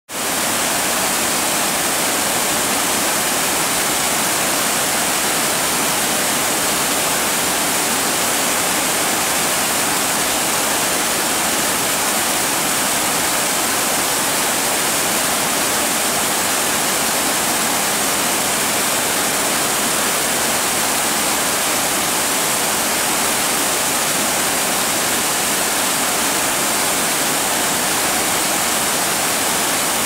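Waterfall in spate, swollen by rain: a loud, steady rush of falling water that does not change.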